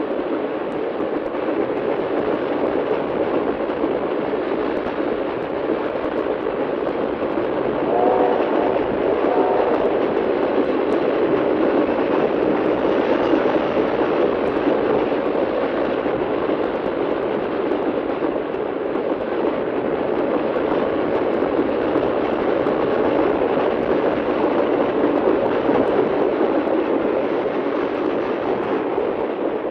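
Locomotive and train passing: a steady, dense running noise of the train on the rails, played from a vintage sound-effects LP. Two short tones sound about eight and nine and a half seconds in.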